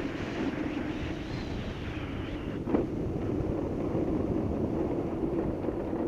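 Wind rushing over the microphone and wheels rolling on rough asphalt as a downhill race kart runs at speed through a bend, with a single knock a little under three seconds in.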